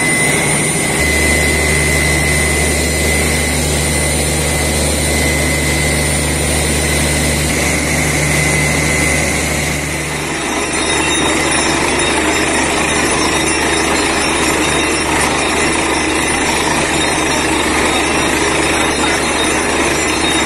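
Truck-mounted borewell drilling rig and its air compressor running steadily. About halfway through, the sound changes from a steady low hum to a rougher, noisier drilling sound.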